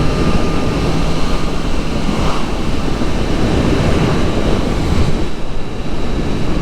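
Wind rushing over the microphone of a Kawasaki Z900 motorcycle moving at speed, with the inline-four engine's steady low note under it for the first couple of seconds before it fades into the wind.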